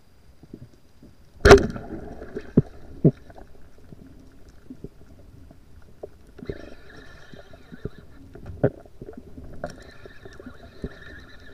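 Underwater sound heard through a diving camera's housing: one sharp knock about a second and a half in, then scattered small clicks. A faint high whine comes in twice in the second half.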